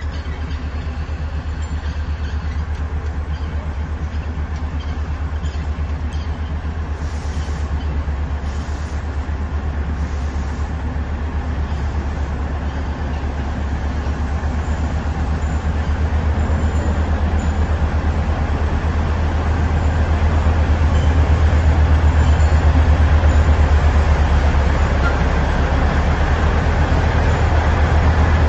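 Running noise of the Neral–Matheran narrow-gauge toy train, heard on board: a steady low rumble with a fast, even flutter and a hiss, growing gradually louder.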